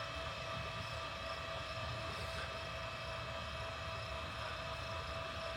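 A steady mechanical hum held at several fixed pitches, over a low rumble.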